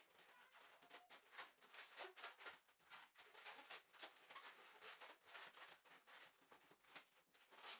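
Faint, irregular squeaks and rubs of a yellow 260 latex modelling balloon as it is twisted and folded by hand.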